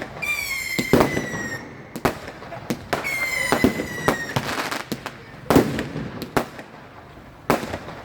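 Fireworks going off in a string of sharp bangs and cracks. Two long whistling fireworks sound, each falling slightly in pitch over about a second and a half: one at the start and one about three seconds in.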